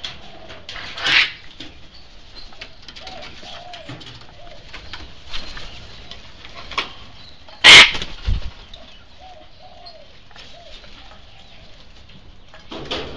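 Sulphur-crested cockatoos calling: one short harsh screech about a second in and a very loud harsh screech about two-thirds of the way through, with faint scattered calls between.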